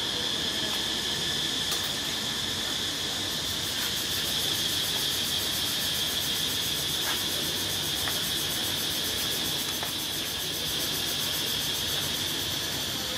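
Steady high-pitched insect chorus, a continuous drone with a fast pulse to it, with a few faint clicks.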